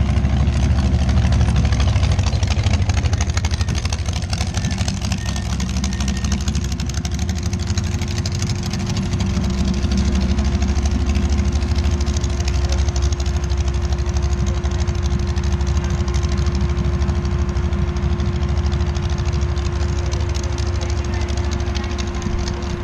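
Dragster engine idling steadily, with a fast even firing pulse and a steady hum over it.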